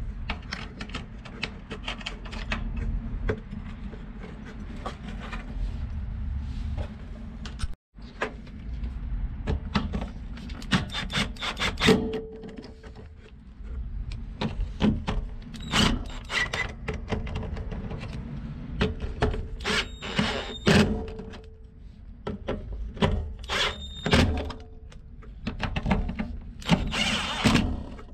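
Clicks and metal knocks of a hand socket tool turning the nuts that hold a fuel pump assembly down on the fuel tank, with a few quick runs of ratchet-like ticking, over a steady low rumble.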